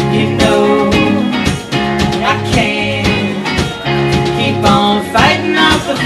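Live band playing: electric guitars, drums and keyboard, with a woman's singing voice in the mix.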